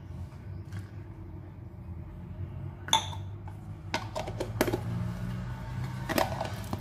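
Steel cup and steel bowl clinking as they are handled and set down on a stone countertop, with a plastic lid twisted onto a jar. There are a few sharp clinks: one ringing metallic clink about three seconds in, then several more in the second half, over a low steady hum.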